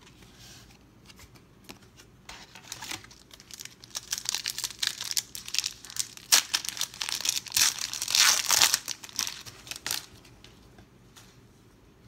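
Foil wrapper of a 1992 Pro Set football card pack crinkling and tearing as it is pulled open by hand, a dense run of crackles that grows loudest near the end and then stops.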